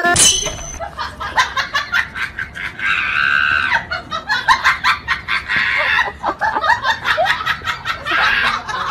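People laughing and shrieking, over a fast rattle of clicks.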